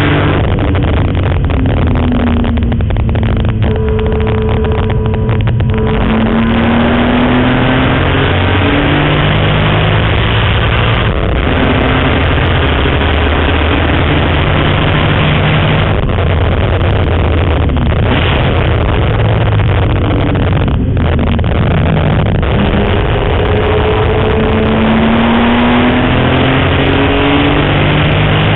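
BMW M3 race car's engine heard from inside the cabin at speed on a racetrack. Its pitch repeatedly climbs and then drops as it is driven hard through the gears and corners, over steady road and wind noise.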